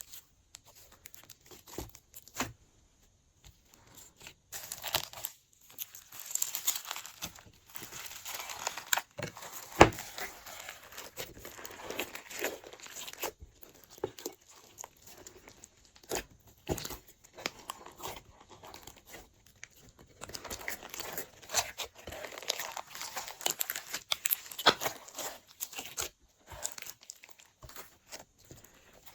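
Hands mixing and pressing glossy slime, making sticky clicking and crackling in irregular bursts with short pauses.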